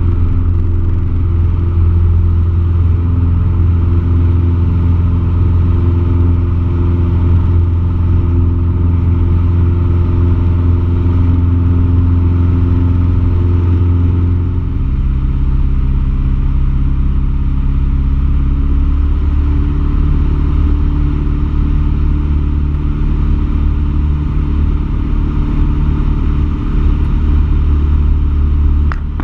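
Single-engine light aircraft's piston engine at full power through the takeoff and climb-out, heard inside the cockpit. Its note drops to a lower pitch about halfway through.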